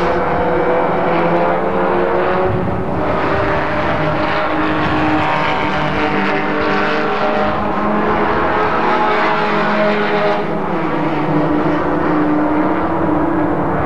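Race car engines running hard on a road course, several engine notes rising and falling in pitch as the cars work through the gears. The sound turns duller about ten seconds in.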